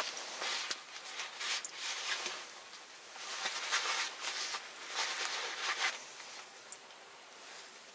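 Close rustling and crinkling handling noises in irregular bursts, dying down about six seconds in.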